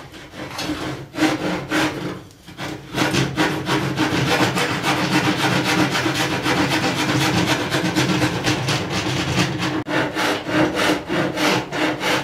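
Small hand rasp (a 'wood eater' rasping file) scraping the edge of a wooden board in rapid back-and-forth strokes, shaping its outline by hand. The strokes are sparser at first, pause briefly about two seconds in, then run steadily at a few strokes a second.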